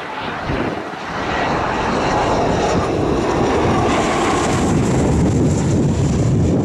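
Airliner's engines, loud, building over the first couple of seconds and then holding steady as the aircraft comes close.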